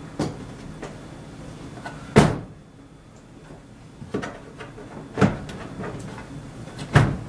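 Metal chassis of a Samsung DLP projection TV being slid back into its cabinet by hand: a series of knocks and clunks, the loudest about two seconds in and near the end.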